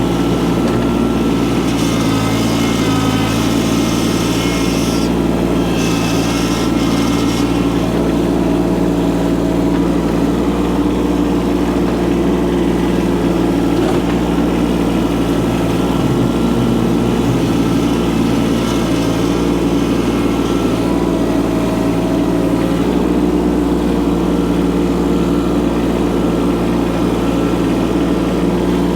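Micro excavator's small engine running at a steady speed while the machine works, with a higher whine that wavers in pitch, most clearly in the first several seconds.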